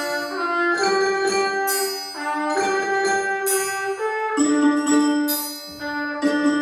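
Slow instrumental music: sustained chords with struck, ringing bell-like notes, the harmony changing about once a second.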